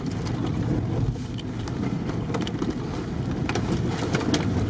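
Off-road vehicle driving on a rutted dirt track, heard from inside the cabin: a steady low engine and road rumble, with a few short sharp rattles or knocks around the middle and near the end.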